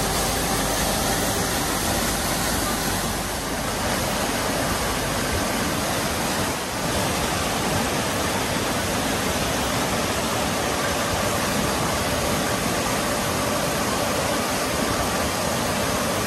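Murietta Falls, a seasonal waterfall about 100 feet high, running at full flow after storms: a steady, unbroken rush of falling water heard close to its base.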